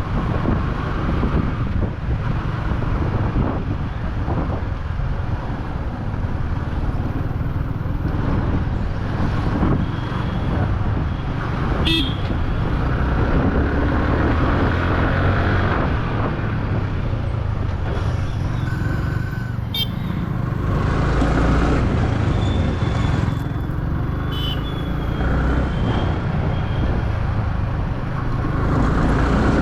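Yamaha R15 V3's single-cylinder engine running under way through road traffic, with wind and road rumble over the motorcycle-mounted microphone. Vehicle horns honk a few times, around the middle and again later.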